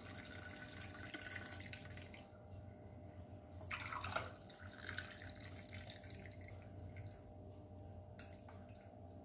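Poppy-seed milk poured from a steel pan into two glass cups: a faint pouring and dripping of liquid. There is a short louder moment about four seconds in, as the stream moves to the second cup.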